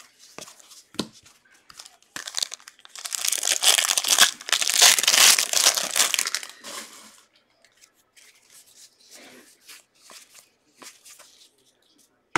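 A foil trading card pack wrapper being torn open and crinkled, a loud crackling rip for about five seconds starting around two seconds in. Light ticks of cards being handled come before and after it.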